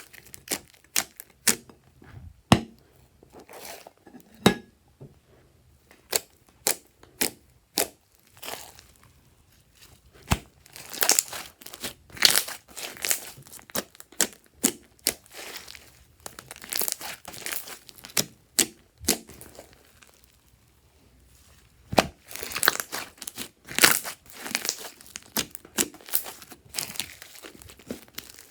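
Fluffy slime squished and stretched by hand: irregular clusters of sharp crackling pops and sticky tearing, with brief quiet pauses.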